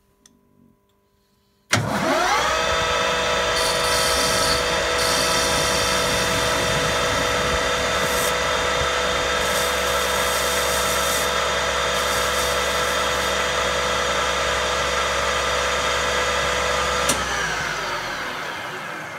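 Metal lathe starting abruptly, spinning up and running steadily with a whine. Intermittent hissing cutting noise comes as the facing tool and the chamfering tool take the end of the bar. A click about 17 seconds in as it is switched off, then the whine falls away as the chuck coasts down.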